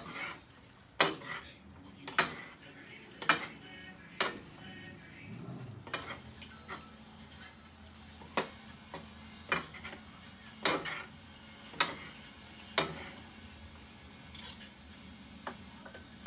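A cooking utensil knocking and scraping against a wok-style pan as beef stir-fry noodles are stirred and tossed, with sharp clacks about once a second.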